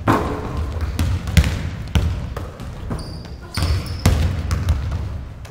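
Basketballs bouncing on a hardwood gym floor: irregular thuds, several players dribbling at once.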